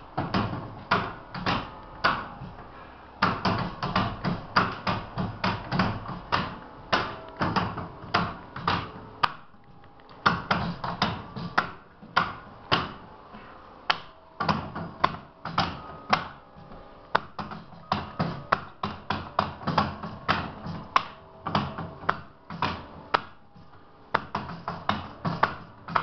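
Church bell chime played from a lever chime stand: the bells are struck one note at a time in a quick tune, about two to three strokes a second, each left ringing, with the wooden levers clacking at every stroke. The tune pauses briefly about ten seconds in.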